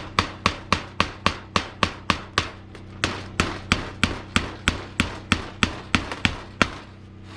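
Hammer blows in a steady rhythm of about three a second, with a brief pause midway, stopping shortly before the end.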